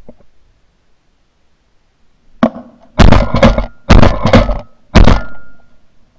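Semi-automatic shotguns firing a rapid volley: three loud shots about a second apart, with fainter shots in between, at a flock of starlings.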